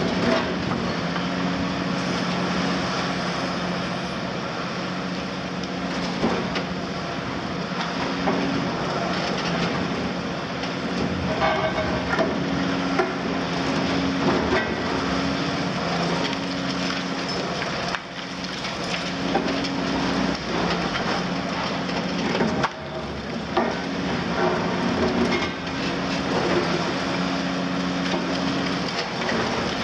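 Cat 352F long-front demolition excavator's C13 diesel engine running steadily under hydraulic load, a hum with a higher tone that comes and goes. Over it, concrete cracks and crunches as rubble breaks away and falls from the building.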